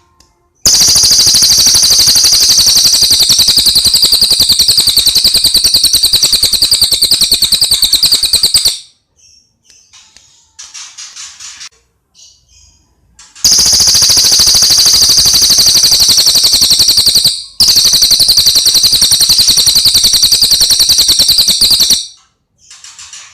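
Cililin songbird singing long, very fast rattling trills in three loud bursts of several seconds each, high-pitched, with a few faint short chirps in the pauses between them.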